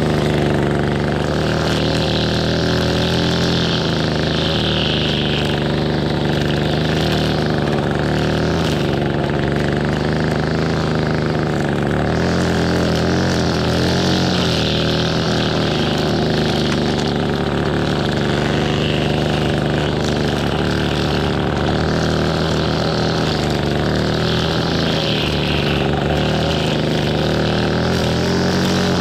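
Echo SRM-225 two-stroke string trimmer running at steady high speed, its line cutting grass. A higher whir swells and fades every few seconds as the line bites into the grass.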